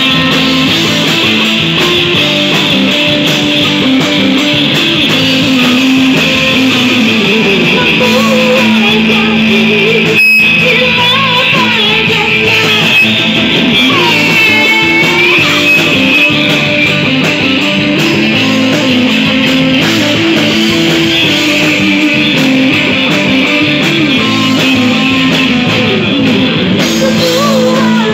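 Live band music, led by guitar with a drum kit, with some singing.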